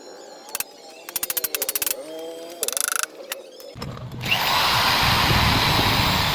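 A few short bursts of rapid clicking, then an electric power tool starts a little under four seconds in and runs loudly and steadily.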